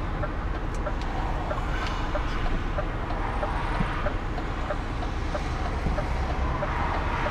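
Steady diesel engine and road noise heard inside a moving lorry's cab, with a strong low rumble.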